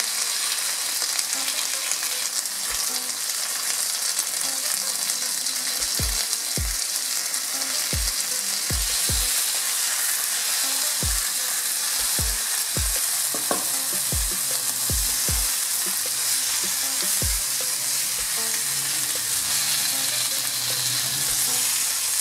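Masala-coated fish fillets sizzling steadily in oil on a flat iron tawa over a raised flame, the moisture in the fish cooking off. Between about 6 and 17 seconds in there is a scatter of soft low knocks as a wooden spatula turns and presses the pieces against the tawa.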